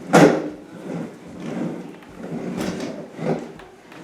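Toys being handled and moved: a sharp knock at the start, then several softer scraping, sliding noises.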